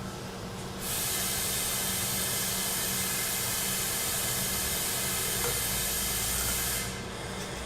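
A compressed-air tool hissing steadily for about six seconds, starting about a second in and cutting off suddenly near the end.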